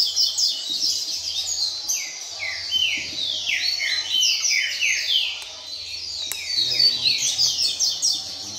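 Double-collared seedeater (coleiro) singing a fast, unbroken run of downward-sweeping whistled notes, many per second, without pausing.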